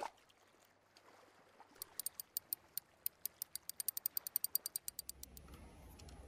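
A rapid run of sharp, ratchet-like mechanical clicks, about ten a second, starting a couple of seconds in and stopping about five seconds in. A faint low rumble follows near the end.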